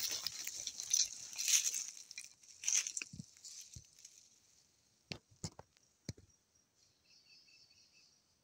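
Dry brush and leaves rustling and crunching underfoot for the first few seconds as someone walks, then fading into a handful of separate clicks and knocks, with faint chirping near the end.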